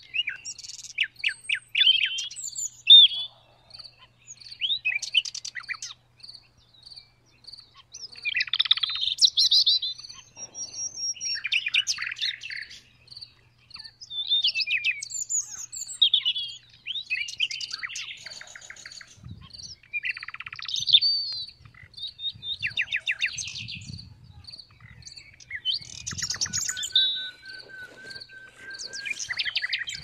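Common nightingale singing: varied phrases of rapid repeated notes, trills and whistles, separated by short pauses. Behind it a cricket chirps steadily, about twice a second.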